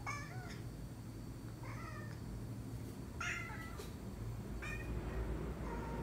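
A tabby cat meowing, five short calls about a second and a half apart, from the top of a refrigerator it is unsure how to get down from.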